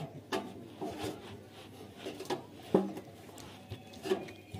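Parts of a hand-pushed lime line-marking machine being handled: scattered knocks, clicks and rubbing as the drum, wheels and handle are moved and fitted, with one sharper knock a little past the middle.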